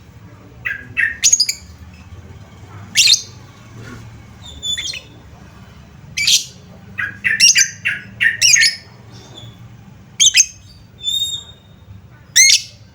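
Lovebird calling: about a dozen short, shrill chirps and squawks at irregular intervals, some in quick clusters.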